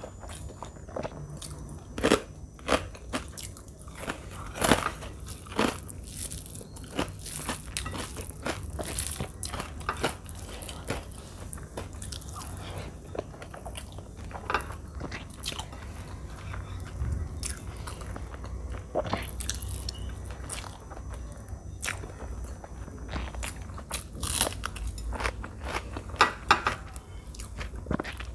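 Close-miked eating sounds: chewing and biting mouthfuls of rice and chicken curry eaten by hand, broken by sharp crunches of papad, the loudest a couple of seconds in and again near the end.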